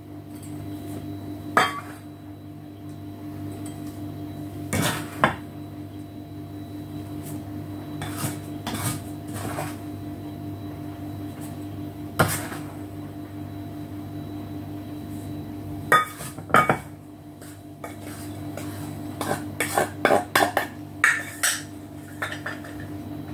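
A plastic measuring cup knocking and scraping against glass mixing bowls as dry flour mix is scooped and tipped across: scattered clinks and taps, with a run of quicker taps near the end. A steady low hum runs underneath.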